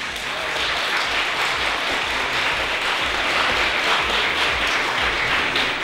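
Audience applauding: many hands clapping in a steady, dense wash.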